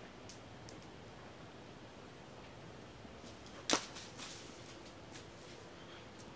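A thrown bolas weighted with metal wrench sockets strikes its target with one sharp knock about four seconds in, followed by a few lighter clicks and rattles.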